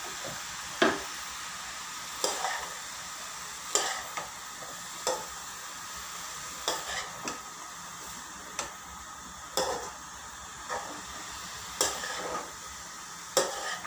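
Spatula scraping and knocking against a frying pan, about one stroke a second, as chopped red cabbage and vegetables are stirred to mix in the ground spices, over a steady sizzle of the vegetables frying.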